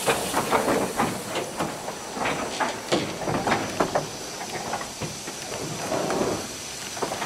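Small steam tank locomotive moving slowly past with a rake of goods wagons: a steady hiss of steam, with irregular clanks and clicks from wheels and wagons on the track that thin out in the second half.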